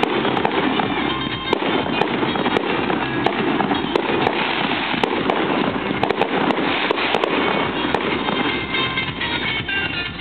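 Fireworks display: a dense, unbroken run of crackling with many sharp bangs scattered through it.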